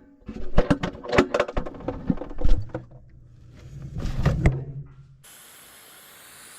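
Quick run of knocks and clatter of hard objects being handled, then a steady low hum with a few more knocks, giving way about five seconds in to a steady high hiss.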